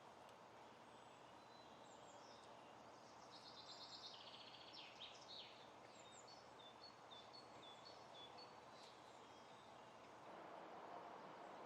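Faint outdoor ambience with small birds chirping repeatedly and a quick trilling song a few seconds in. A soft rushing noise grows slightly louder near the end.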